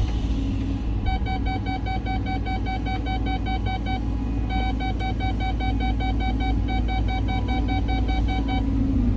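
Cat 323 excavator's diesel engine running steadily under load, with a low rumble. About a second in, rapid electronic beeping joins it, about four beeps a second; it pauses briefly near the middle and stops shortly before the end.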